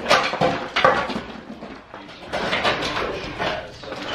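Irregular knocks and clattering, several sharp impacts in quick succession with short pauses between them.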